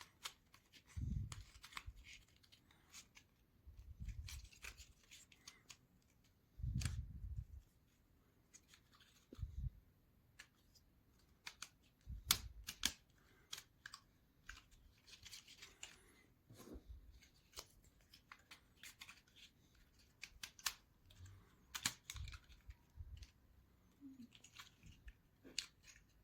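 Small basswood model-kit parts being handled and pressed into place: scattered light clicks and taps of wood on wood, with a few dull low thumps.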